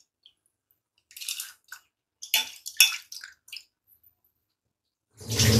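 Aluminium pot of boiling water bubbling and splashing in short irregular crackles as soaked dal goes in. A louder, deeper noise lasting about a second and a half comes near the end.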